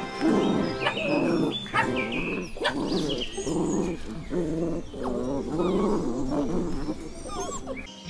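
Dog vocalizing repeatedly: a string of wavering, drawn-out calls with a few short sharp barks among them.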